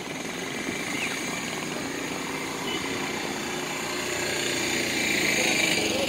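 Street traffic: cars driving past on a paved road with a steady rumble of engines and tyres, one vehicle passing close and getting louder near the end.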